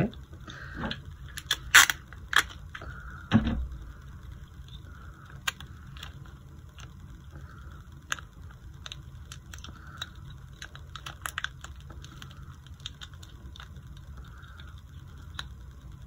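Clear tape, a plastic drinking straw and a wooden craft stick being handled and taped together: scattered small clicks and crackles, with a few sharper clicks in the first few seconds.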